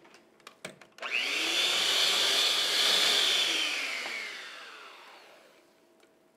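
Electric mixer beating cake batter: after a couple of light clicks, the motor starts suddenly about a second in, runs steadily for a couple of seconds, then winds down with a falling pitch and fades out.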